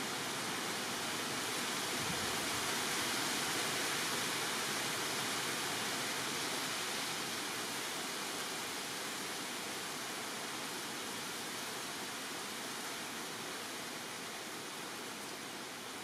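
Steady rushing hiss of rainforest ambience. It swells slightly a few seconds in and eases off toward the end, with no bird calls standing out.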